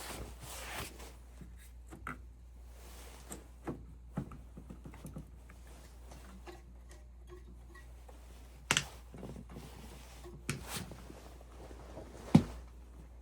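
Scattered clicks and knocks, as of tools and parts being handled, the loudest one near the end, over a faint low steady hum.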